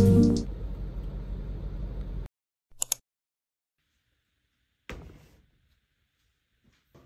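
Background music cuts off just after the start, giving way to a steady low car-cabin rumble that stops abruptly after about two seconds. Then short knocks: a quick double knock, a single thump about two seconds later, and a faint tap near the end, from handling a top-loading washing machine.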